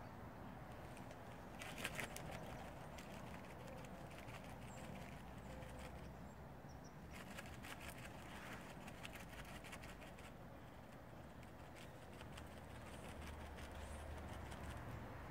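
Quiet outdoor background with scattered light clicks and taps, bunched about two seconds in and again around seven to nine seconds in.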